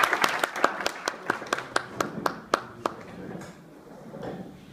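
Audience applause dying away into a run of single claps, about four a second, which stop about three seconds in.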